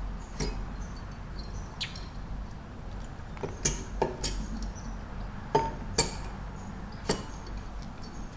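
Light metallic clicks and clinks, about eight in all at uneven intervals, as a Honda Monkey cylinder head is worked down over its studs and cam chain. The loudest clicks come a little past halfway.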